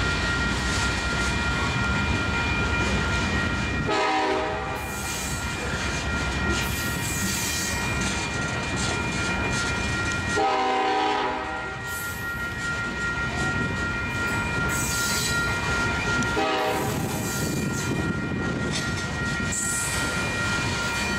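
Freight train's hopper cars rolling past close by, a continuous rumble with wheel clatter. The locomotive horn ahead on the train sounds three blasts, about 4, 10 and 16 seconds in, the middle one the longest, and a fourth begins at the very end.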